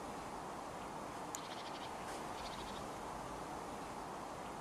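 Forest ambience: a steady soft rushing with slow swells, and twice a short, rapid clicking trill, the first led by a sharp high tick.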